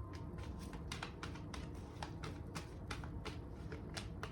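Tarot cards being handled and shuffled by hand: a run of light, irregular card clicks, about four to five a second.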